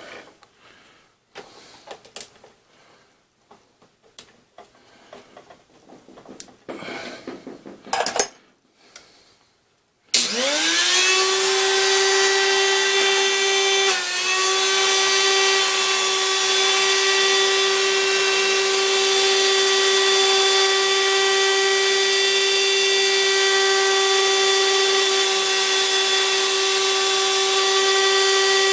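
A few seconds of clicks and handling knocks, then a tool post grinder spins up with a quickly rising whine about a third of the way in and runs at a steady high speed. Its loud whine dips briefly once a few seconds after it settles.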